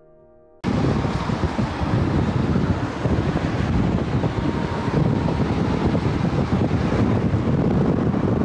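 Wind buffeting the microphone and road noise from a moving car: a loud, steady rush that starts suddenly about half a second in.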